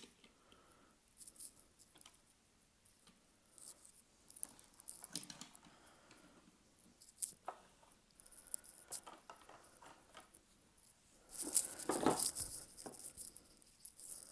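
Die-cast toy cars being handled and set down on a surface: scattered light clicks and scrapes, with a louder clatter of handling about eleven to twelve seconds in.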